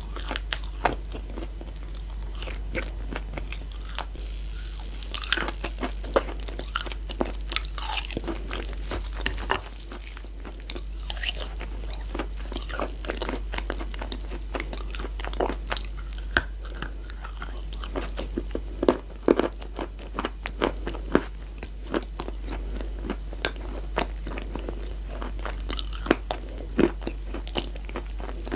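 Close-miked chewing and crunching of dry chalk and clay-chalk pieces: a dense run of sharp, irregular crackles and crunches. A steady low hum lies underneath.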